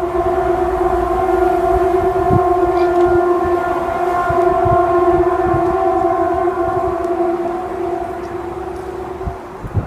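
A loud, steady, horn-like drone on one unchanging pitch, held for about nine seconds and then fading out, with low rumbling noise beneath it and a thump at the very end.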